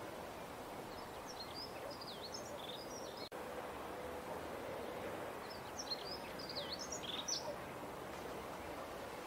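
Songbird singing in two quick phrases of rapid, high chirps, about a second in and again near six seconds, over a steady background hiss of ambient noise. The sound cuts out for an instant a little past three seconds.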